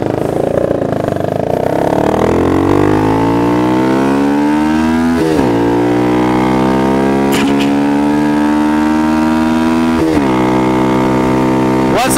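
Motorcycle engine pulling away through its loud exhaust, revs climbing. It shifts up about five seconds in and again about ten seconds in, each shift a quick drop in pitch, then runs steadily.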